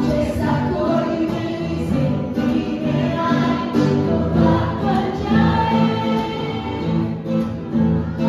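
A woman sings a Bollywood Hindi song into a microphone while an acoustic guitar is strummed as accompaniment.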